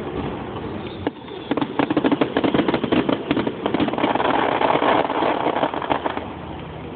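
Fireworks display: a single bang about a second in, then a dense run of rapid crackling reports that thickens into a continuous crackle before dying away near the end.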